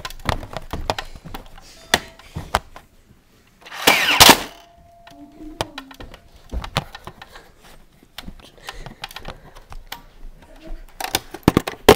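Footsteps and knocks from someone moving with a Nerf blaster in hand, with one short, loud rush of noise about four seconds in.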